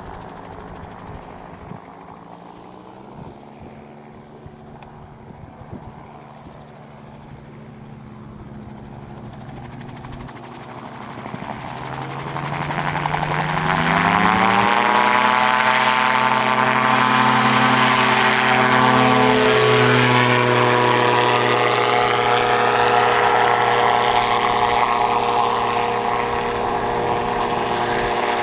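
Rotax 582 two-stroke engine of a Merlin gyroplane, running at low power at first, then opening up to full throttle for the takeoff. Its pitch rises over a few seconds, about midway through, to a loud steady drone that holds as the gyroplane climbs past.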